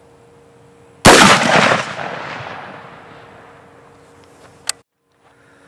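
A single loud rifle shot from a DRD Tactical M762 takedown rifle about a second in, its report dying away slowly over a couple of seconds. A short sharp click follows near the end.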